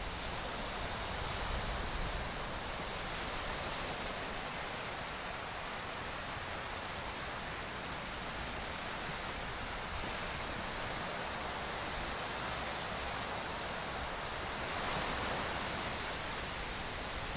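Small waves breaking and washing up on a sandy beach: a steady rush of surf, swelling slightly about fifteen seconds in.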